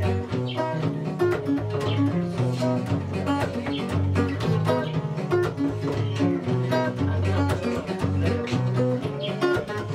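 Music led by a plucked string instrument playing quick melodic lines over a moving bass line and a steady beat.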